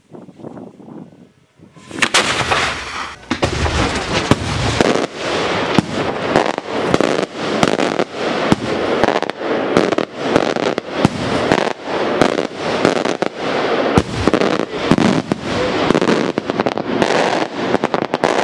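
Maltese daylight fireworks going off: after a quiet couple of seconds, a sudden dense barrage of rapid bangs and crackling that keeps on without a break.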